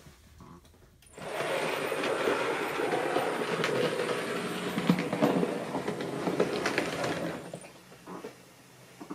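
Model train running past close by, its wheels clattering over the track joints. Starts abruptly about a second in and fades away after about seven seconds.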